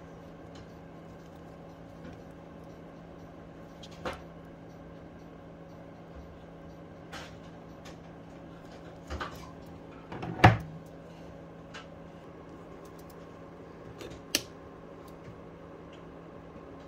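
A few sharp knocks and taps as a smartphone and its removed case are handled and set down on a wooden bench, the loudest about ten and a half seconds in, over a steady low hum.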